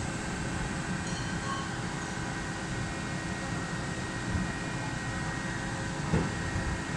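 CNC lathe running with a steady machine noise and several constant whining tones. A short knock comes about six seconds in.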